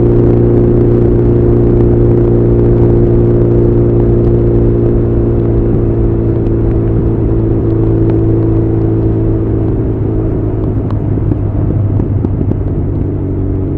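Honda CB1100's air-cooled inline-four running through an Arrow titanium full exhaust system while riding, at steady revs with an even, unchanging note. The loudness falls off slightly toward the end.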